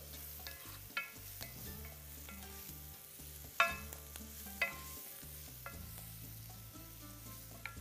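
Grated carrot and onion sizzling in oil in a frying pan, stirred with a utensil that clinks sharply against the pan a few times, the loudest clinks about one second in and around three and a half and four and a half seconds in. A low steady hum runs underneath.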